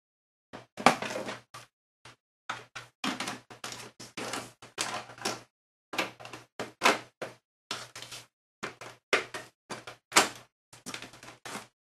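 Metal side panel of a Compaq Evo desktop computer case being fitted and slid back into place: a string of short clatters, scrapes and knocks.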